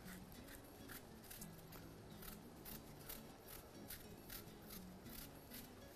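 Hand vegetable peeler scraping the skin off a green apple in short, faint strokes, about two to three a second.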